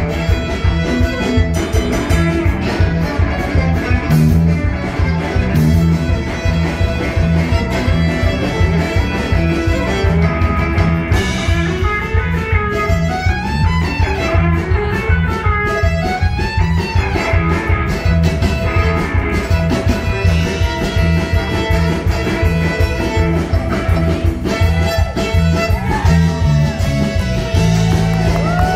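Live band music led by a fiddle over electric guitar, bass and a steady drum beat. About halfway through, the fiddle plays runs that slide up and down in pitch.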